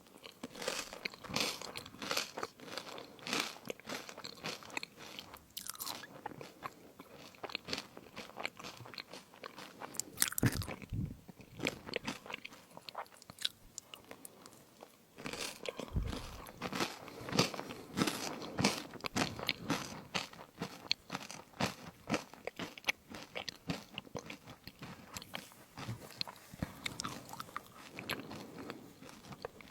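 Close-miked crunching and chewing of fruit crisps, a steady run of crisp crackles with louder bites about ten and sixteen seconds in.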